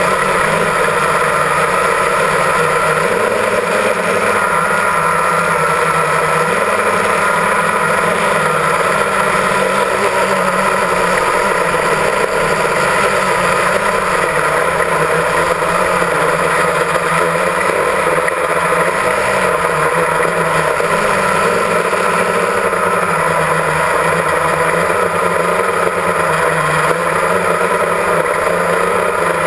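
Drone's electric motors and propellers running steadily in flight, a constant multi-tone whine that wavers slightly in pitch, heard close up from the onboard camera.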